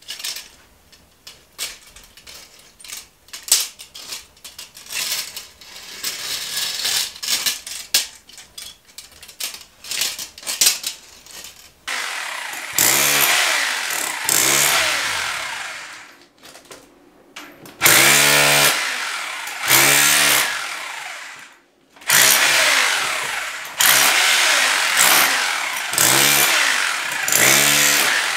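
Scattered knocks and clicks of hand work, then, from about twelve seconds in, an electric drill run in about six bursts of a couple of seconds each, boring holes for cable runs.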